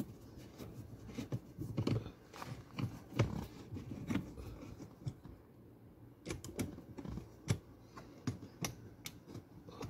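Irregular light clicks and taps of plastic dashboard trim being handled, a dozen or so scattered through the stretch with short gaps between them.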